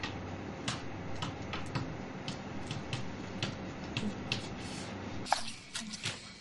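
Chalk tapping on a chalkboard while writing: an irregular run of quick ticks over a steady room hiss, with a sharper knock about five seconds in, after which the hiss drops away.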